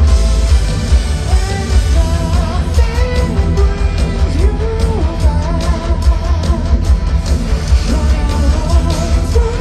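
Live heavy metal band playing through a big festival PA: a male lead vocalist sings a melody with held, wavering notes over distorted electric guitar, drums and heavy bass.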